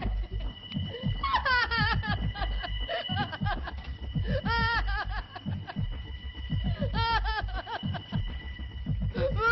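A woman's voice in three long, shaking outbursts that waver up and down in pitch, about two and a half seconds apart, over a steady low thudding.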